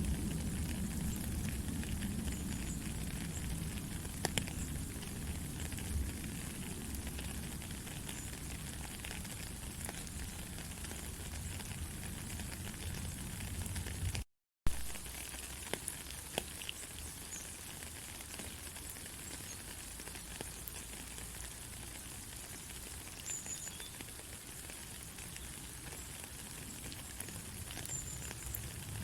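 Steady rain falling, an even hiss with scattered ticks of individual drops. About halfway through, the sound cuts out for a split second and comes back with a sharp click.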